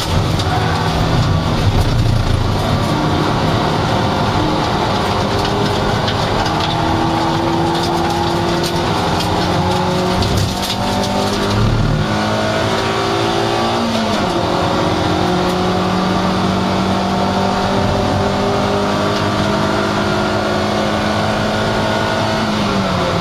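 Toyota MR2 Roadster's 1.8-litre four-cylinder engine running hard at racing speed, heard from inside the cabin over wind and road noise. Its pitch dips sharply about 14 seconds in and again near the end.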